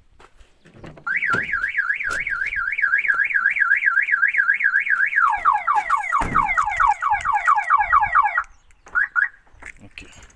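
Car alarm siren going off: a fast warbling up-and-down tone, then switching to rapid repeated falling whoops, cutting off abruptly, with one short chirp after it.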